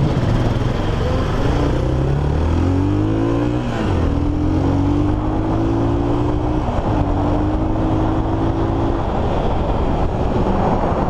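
Motorstar Cafe 400's single-cylinder engine accelerating through the gears over a steady rush of wind and road noise. Its pitch climbs, then drops at upshifts about four and seven seconds in, and it eases off near the end. The rider says the clutch slips on the hard third-gear pull, which he puts down to a clutch adjustment that isn't right.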